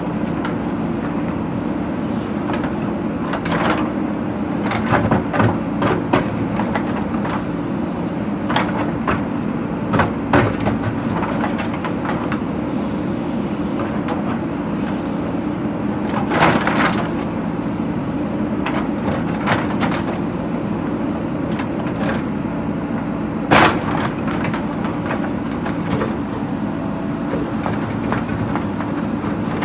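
JCB backhoe loader's diesel engine running steadily under work, with scattered sharp knocks and clanks of the bucket striking brick and stone. The loudest clanks come about halfway through and again near the end.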